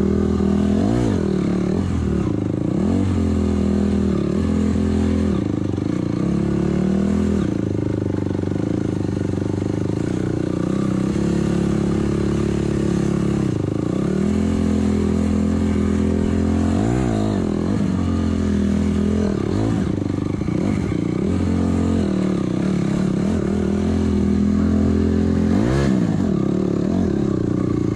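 Honda CRF250R dirt bike's single-cylinder four-stroke engine running under way, its note dipping and climbing back up several times as the throttle and gears change.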